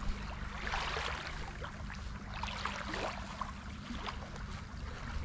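Small waves lapping and splashing in shallow water, in irregular soft washes, over a steady low wind rumble on the microphone.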